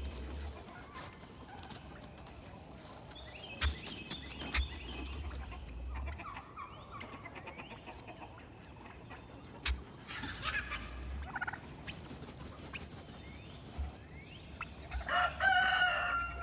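Domestic turkeys gobbling in short bursts, with chickens clucking; a rooster crows near the end.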